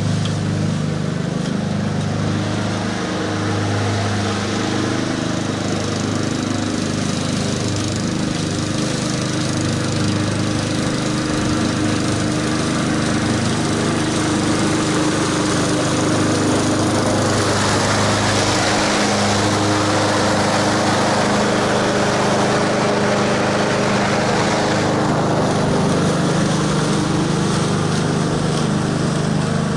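Honda HRX217 walk-behind lawn mower's single-cylinder engine running steadily under load while cutting grass. Several seconds past the middle the sound grows louder and hissier for a while, then settles back.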